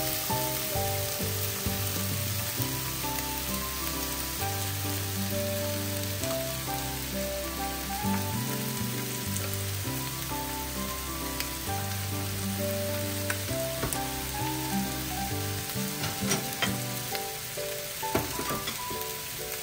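Chicken-and-leek yakitori skewers sizzling steadily in a nonstick frying pan, the raw meat just starting to cook, with a few sharp crackles near the end.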